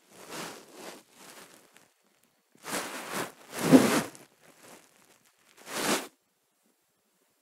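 Several short bursts of rustling, the loudest about four seconds in: a hand rubbing a Maltese puppy's fur against the bedding.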